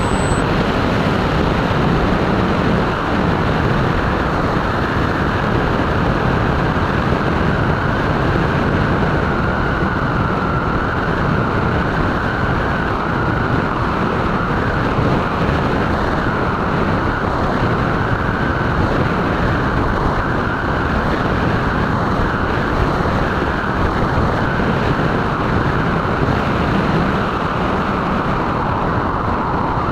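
Steady rush of wind and propeller noise from a Multiplex Twinstar RC model plane in flight, picked up by its onboard camera, with a faint wavering whine from its electric motors.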